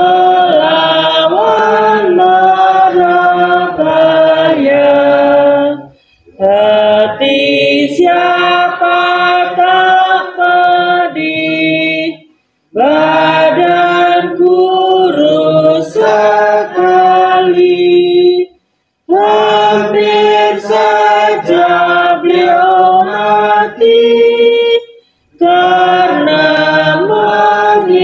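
A group of women and men singing an Indonesian Buddhist devotional song together in sung phrases, with a short pause about every six seconds.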